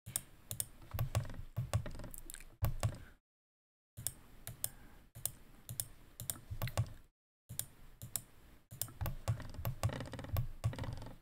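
Irregular clicking and tapping of a computer keyboard and mouse in quick runs, broken a few times by short stretches of dead silence.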